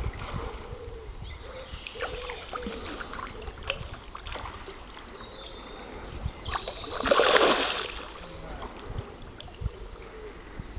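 Spawning carp splashing at the surface of a shallow, weedy pond: one loud splash lasting about a second, a little past the middle, among smaller scattered slaps and clicks.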